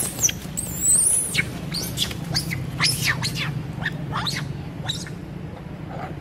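Young macaque screaming while being attacked by bigger monkeys: a run of shrill, high screams, each rising and falling in pitch, dying away about five seconds in.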